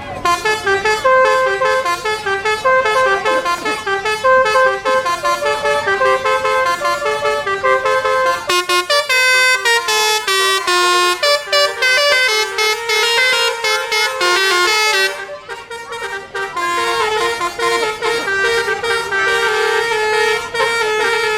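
Basuri V4 multi-tone 'telolet' bus air horn playing a tune: quick stepped notes one after another, with a brief lull about fifteen seconds in before the tune carries on.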